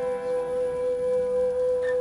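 Live folk music from a singer with acoustic guitar and a fiddle: one long note held steady at a constant pitch.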